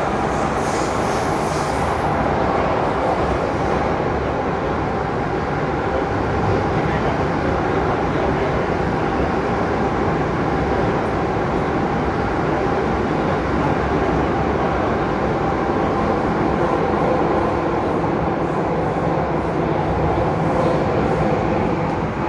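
MTR M-Train electric metro train running between stations, heard from inside the carriage: a steady, loud rumble of wheels on rail and running gear, with a faint high whine about a second in.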